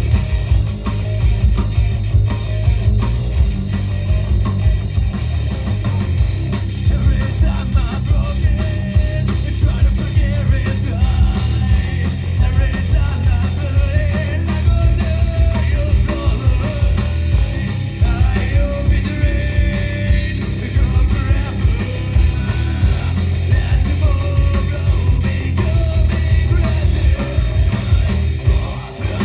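Rock band playing live, with guitars and a drum kit going loud and without a break.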